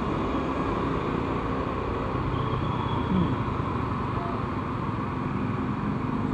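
Yamaha Vega ZR underbone motorcycle's small four-stroke single running steadily while being ridden, under a constant rush of wind and road noise.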